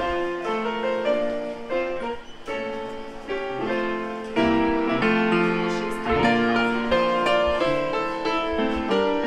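White upright piano played live by a ragtime pianist: a tune of chords and quick runs of notes.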